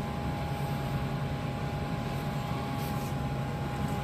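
MX LP801 power amplifier's cooling fan running steadily, with a low steady hum and a thin constant tone above it.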